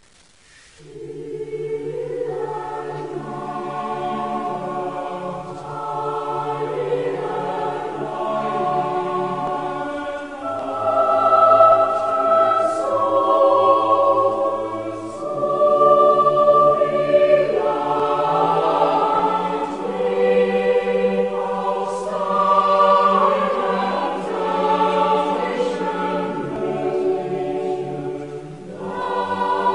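A choir singing in held chords that change every second or two, coming in about a second in.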